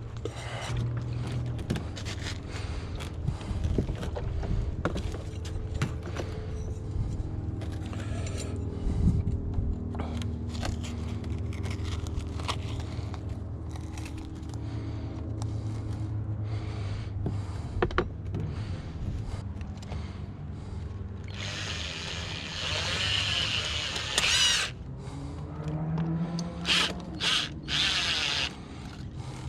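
Steady low hum with scattered clicks and knocks of handling, then a power drill runs for a couple of seconds, its pitch wavering, and again in several short bursts near the end.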